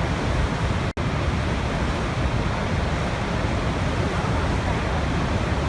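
Niagara Falls: the steady, dense rush of a large waterfall, heavy in the low end. It breaks off for a split second about a second in, like an edit splice.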